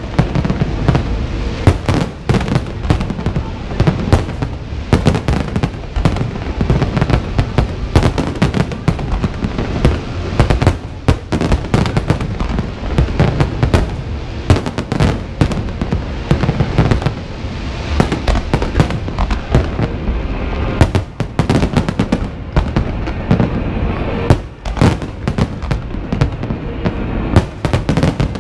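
Large fireworks display in a dense barrage: many sharp bangs and crackles overlapping without pause over a low rolling rumble, with a few louder reports standing out.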